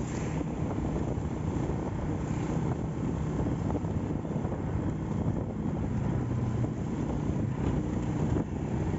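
Restored Honda Astrea Grand motorcycle running steadily on the road, with heavy wind buffeting the microphone over the engine and road noise.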